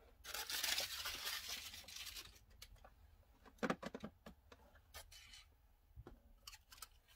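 Spools of thread clattering and rubbing against each other and a plastic tote as a hand rummages through them: a rustling scrape for the first two seconds or so, then a few scattered clicks and knocks.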